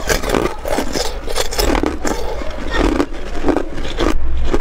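Hard ice being crunched between the teeth close to the microphone, with loud, crisp crunches about two or three times a second as the piece is chewed.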